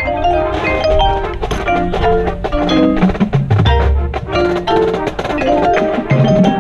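A drum corps front ensemble playing: a dense run of quick mallet-keyboard notes on marimba, xylophone and glockenspiel over low drum hits.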